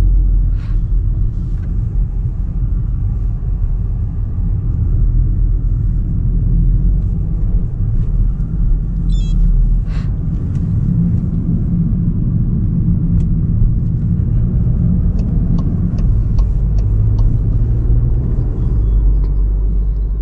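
Low, steady rumble of the Cupra Formentor 310's turbocharged 2.0-litre four-cylinder engine and tyre noise, heard from inside the cabin as the car drives along at low speed, with a few faint clicks from the cabin.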